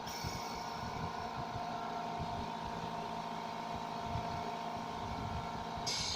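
Oxygen concentrator's compressor motor running steadily with a humming tone, and a brief hiss near the end.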